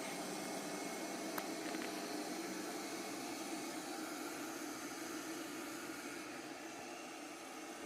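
Light 'N' Easy robot vacuum cleaner running, a steady whir and hiss from its suction motor, with a single click about a second and a half in.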